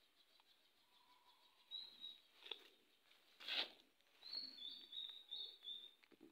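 Faint bird chirps: short, high, flat notes, a couple about two seconds in and a quick run of them from about four to six seconds. A brief scuffing noise a little past halfway is the loudest sound.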